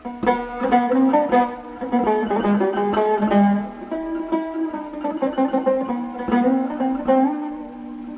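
Solo Turkish tanbur, a long-necked fretted lute plucked with a plectrum, improvising a melody in makam Hüzzam. A run of quickly picked notes rings out in the first half, then the notes come more slowly and sustain longer.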